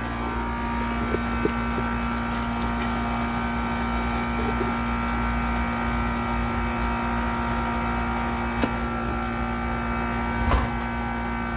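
Refrigeration condensing unit of a shop display-case fridge running: compressor and condenser fan give a steady motor hum with several steady tones, with two brief clicks near the end.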